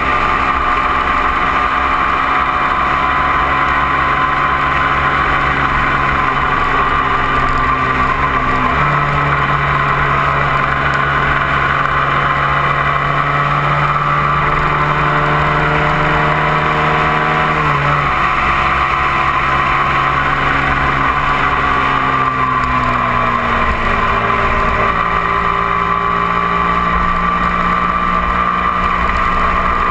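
On-board sound of a 250 cc twin-cylinder sport motorcycle engine running at highway speed over a low rush of wind and road noise. The engine note jumps up abruptly about nine seconds in and drops back abruptly about eighteen seconds in as the rider changes gear, then sags slowly and picks up again near the end.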